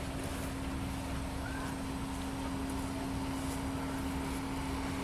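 An engine idling steadily: a constant hum over a low rumble.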